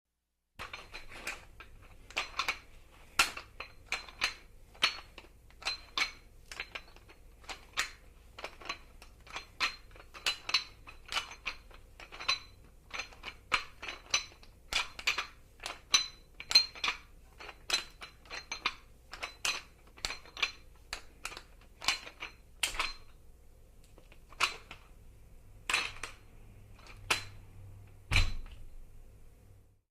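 Metal weight plates and barbell clanking and clinking over and over at an uneven pace, about one to two knocks a second, each with a brief metallic ring. A heavier thud comes near the end, as of a weight being set down.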